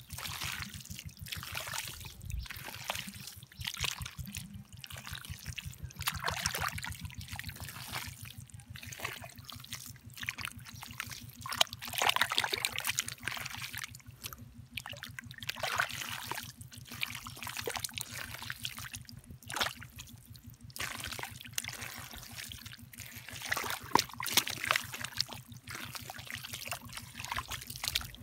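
Hands digging through wet mud and muddy water, with repeated squelches, sloshes and trickles as the mud is scooped and turned over. A steady low hum runs underneath.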